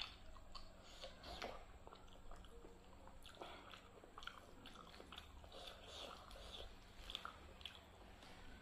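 Faint close-miked chewing and mouth smacking on a mouthful of rice and dal, with soft wet squishing as fingers mix rice into dal on the plate. It is a scatter of small irregular clicks and crackles.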